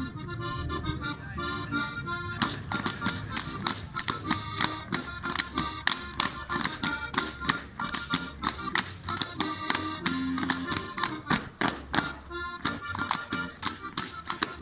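Accordion playing a lively Tyrolean folk-dance tune. From about two seconds in, the dancers' rapid sharp slaps, claps and stamps beat in time with it, as in a Schuhplattler.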